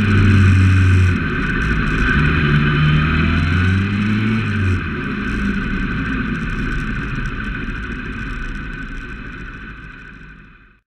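Motorcycle engine heard from a camera on the bike, with steady wind rush on the microphone. The engine pitch rises and falls through the first few seconds, then the engine sound drops away about five seconds in, leaving mostly wind and road noise that fades out near the end.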